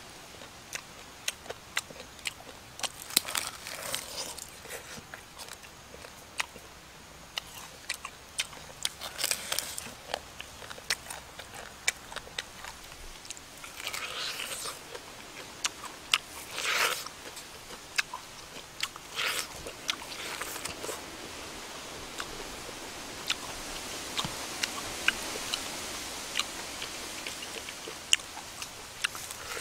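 Close-up eating sounds: biting into and chewing the charred skin and meat of a grilled pig head, with many sharp crunching clicks and several louder bursts of tearing and crunching.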